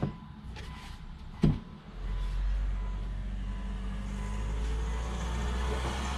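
Mitsubishi Evo 8 switched on for a test of its idle control solenoid: a single knock about one and a half seconds in, then a steady low hum from about two seconds on.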